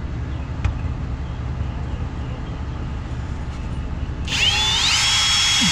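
A low steady rumble, then about four seconds in a power drill starts up loudly. Its whine rises and then holds steady as it bores a hole through an aluminum brace.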